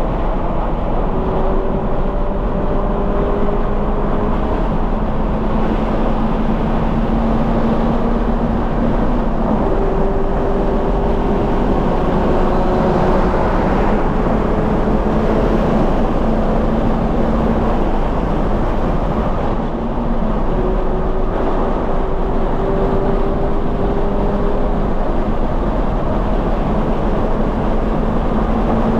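2020 Toyota 86's 2.0-litre flat-four engine, breathing through a Corsa cat-back exhaust, pulling hard at speed on track. Its pitch climbs slowly and drops back lower about ten and twenty seconds in, over steady wind and tyre noise.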